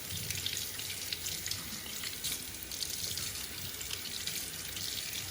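Kitchen tap running steadily into a sink as raw chicken is rinsed under it, with small scattered splashes and knocks.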